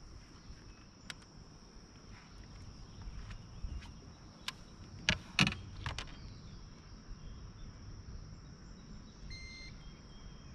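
Steady high-pitched insect drone, like crickets, with a handful of sharp clicks and knocks around the middle, loudest about halfway through. A couple of short electronic beeps come near the end.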